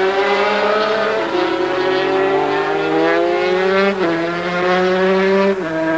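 Several two-stroke 250 cc Grand Prix racing motorcycles at full throttle. Their engine note climbs steadily and drops back sharply with upshifts about a second in, at four seconds and near the end.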